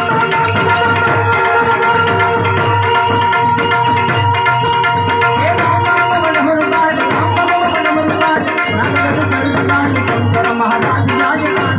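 Instrumental interlude of an Indian devotional song: long held keyboard-like tones and a wandering melody over a steady hand-drum beat and a shaker.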